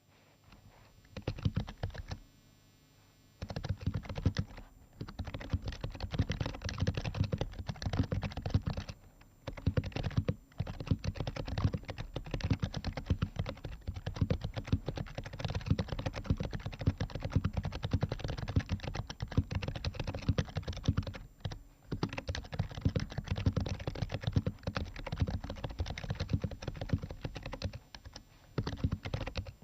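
Continuous typing on an HHKB Pro 2 Type S keyboard whose Topre switches are fitted with BKE Redux light replacement domes: a fast run of keystrokes broken by a few brief pauses.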